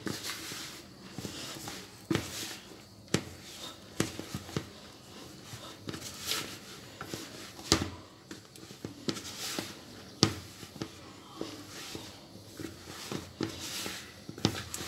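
Hands kneading crumbly cornstarch dough in a plastic bowl, with irregular thumps as the dough is pressed and knocked against the bowl between softer rustling.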